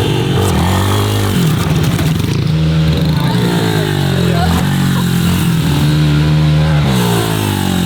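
Small dirt-bike (pit bike) engine revving hard, its pitch climbing again and again as the rider shifts up and throttles on and off.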